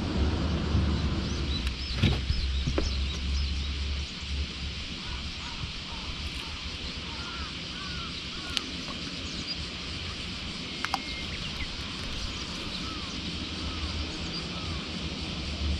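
A low engine drone fades out about four seconds in, leaving scattered small bird calls and a few sharp clicks.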